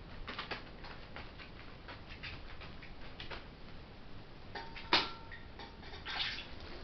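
Scattered light taps and crinkles of a young herring gull moving on plastic tarpaulin. About five seconds in, a sharp clack with a brief ring as its beak strikes its bowl, followed by more pecking taps.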